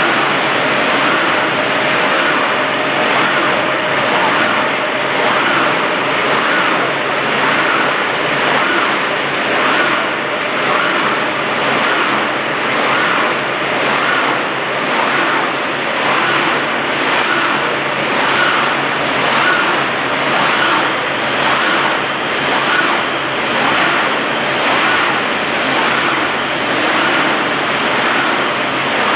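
Automatic wire-mesh welding line running, a dense industrial machine noise that repeats in a steady cycle about once a second as the line welds and advances the mesh.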